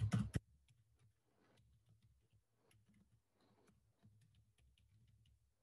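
Faint computer keyboard typing: scattered soft keystroke clicks over an otherwise very quiet room, with a couple of louder clicks right at the start.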